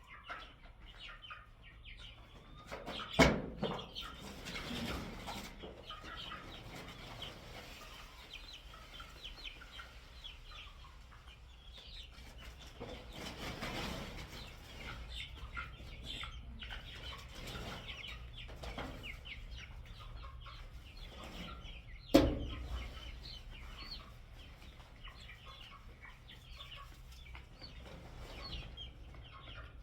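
Chickens clucking steadily, with two sharp loud knocks, about three seconds in and again about twenty-two seconds in.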